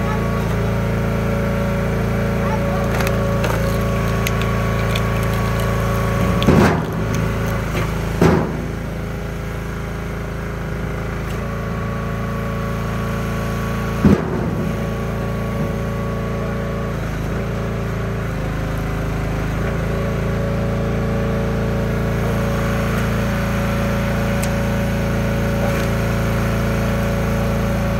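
An engine running steadily while wood cracks and splits three times: twice close together about six and a half and eight seconds in, then once more, sharp and short, about fourteen seconds in.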